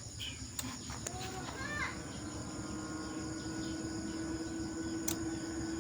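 Cooling fans of an ACE CA5 power amplifier starting up after switch-on, settling into a steady hum from about two seconds in. A few light clicks come before and during it.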